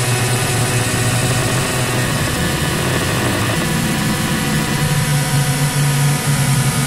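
Heavily distorted, effects-processed audio: a loud, continuous buzzing drone with a steady low hum running under it.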